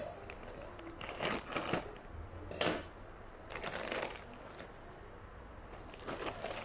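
Plastic courier mailer bag crinkling and rustling in four short bursts as hands pull it open and handle it.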